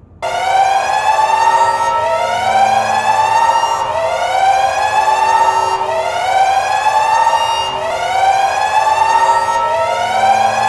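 Alarm siren sounding in rising sweeps of pitch, one sweep about every two seconds, repeating steadily.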